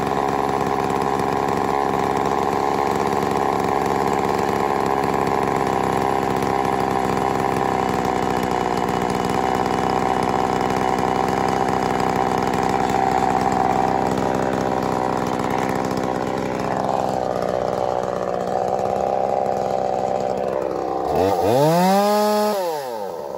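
Two-stroke chainsaw idling steadily while its carburetor adjustment screw is turned with a small screwdriver, the idle pitch shifting a little past the middle. Near the end the throttle is opened once: the engine rises to a high whine and drops back to idle.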